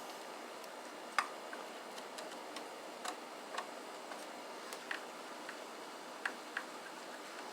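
Light, irregular clicks and ticks of a screwdriver and small screws as screws are driven in to secure the amplifier's in/out board, over a faint steady hiss.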